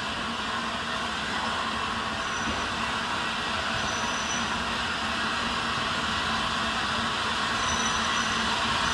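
Small steam tank locomotive approaching slowly along the track, a steady running noise of the engine and wheels on rail that grows gradually louder as it nears.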